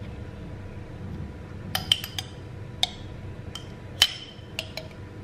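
Glass and cutlery clinking against ceramic dishes: about eight sharp, briefly ringing taps, the loudest about two seconds and four seconds in.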